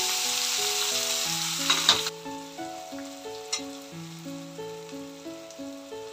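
Chopped onions hitting hot oil in a steel kadai: a loud sizzle that settles to a softer frying sizzle about two seconds in, with a few clinks and scrapes of the pan. Background music plays throughout.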